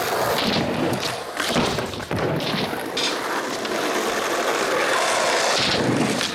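Skateboard wheels rolling over a concrete ramp in a steady rumble, with a couple of sharp knocks of the board about one and a half and two seconds in.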